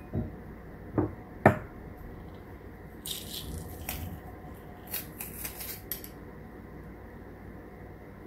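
A few knocks in the first second and a half, the loudest about a second and a half in, then a stainless-steel garlic press squeezed over a bowl, with garlic crunching and the metal handles clicking in two short spells.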